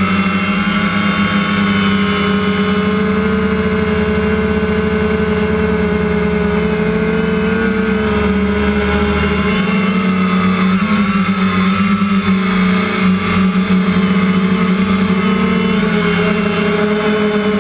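Quadcopter's electric motors and propellers whirring steadily, heard from the camera on the copter's own frame: a loud, even buzzing hum whose pitch wavers slightly midway as the motors adjust.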